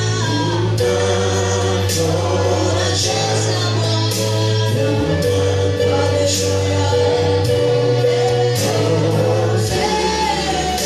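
Live gospel worship music: a small group of singers, women and a man, singing together into microphones over instrumental accompaniment with long sustained bass notes and regular percussion hits.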